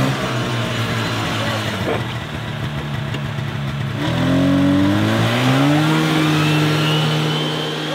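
Snowmobile engine running under way, speeding up about four seconds in and then holding a steady higher pitch.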